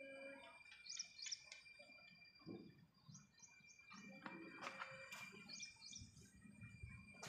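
Faint bird chirps: a few short, high calls, some in quick pairs, over a steady thin high tone and low handling rustle.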